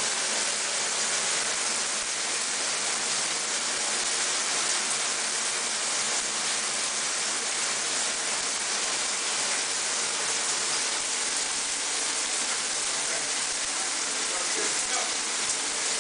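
Shower running, a steady spray of water splashing in the stall.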